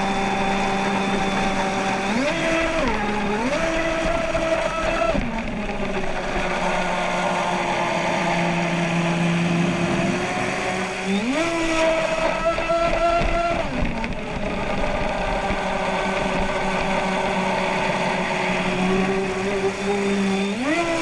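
Brushless electric motor of a Proboat Miss Geico 29 RC catamaran whining, its pitch stepping up and down several times as the throttle is opened and eased, over the hiss of water along the hull.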